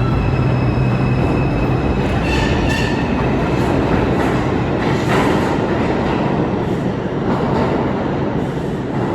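R142 subway train running through the station: a steady loud rumble of wheels on rail, with a faint whine fading out near the start and brief high wheel squeals about two to three seconds in.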